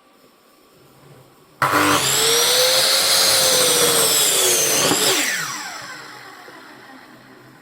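Electric saw motor started with a sudden whine about a second and a half in, running at speed for about three seconds, then switched off and spinning down with a falling pitch.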